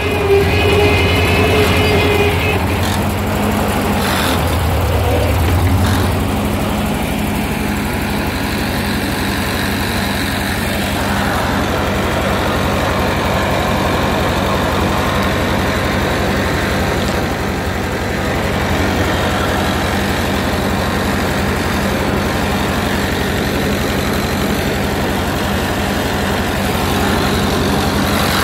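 1941 Ford tractor's four-cylinder engine running steadily while the tractor is driven, its low note a little heavier for the first six seconds or so.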